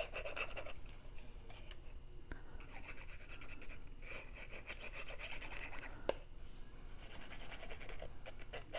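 Faint scratching and rubbing of glue being applied to the paper tabs of a cardstock insert, in several short stretches, with a couple of light taps.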